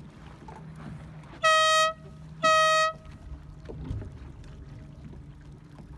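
Air horn giving two short blasts, each about half a second long and a second apart.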